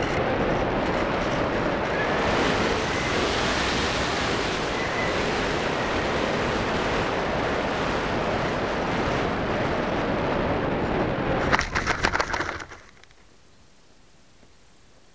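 Airflow rushing over the microphone of a keychain camera riding on a model glider in flight, a steady loud hiss. About 11.5 s in, a quick run of knocks and scrapes as the glider hits the grass and skids to a stop, after which the sound drops to a faint background.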